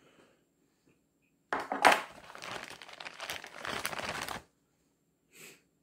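Clear plastic bag crinkling and rustling for about three seconds as a hand rummages inside it, then a brief short rustle near the end.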